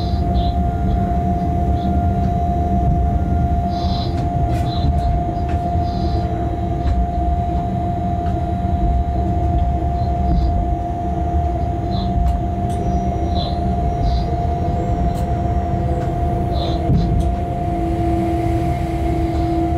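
Freight train locomotive running along the track, heard from the driver's cab: a steady low rumble with a constant hum over it, and brief high-pitched squeaks now and then.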